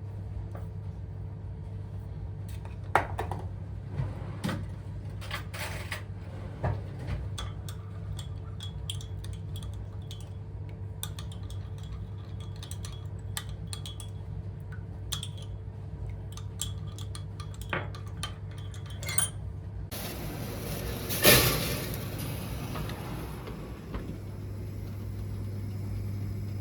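Dishes and cutlery clinking and knocking in scattered small taps over a steady low hum. About twenty seconds in, a hissing rush starts, with the loudest knock a second later, and fades over the next few seconds.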